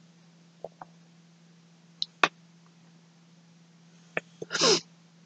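Handling noise from hands turning a skein of bulky yarn close to the microphone: scattered light clicks and taps, a sharper click a little over two seconds in, and a short louder noise near the end, over a steady low hum.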